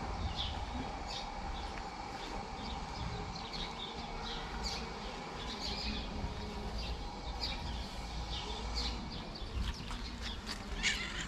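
Small birds chirping, many short high chirps scattered throughout, over a steady low background rumble.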